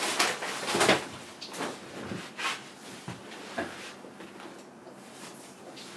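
Off-camera handling noises at a workbench: a run of short scrapes and knocks as things are moved about, busiest in the first second and tapering off after about four seconds.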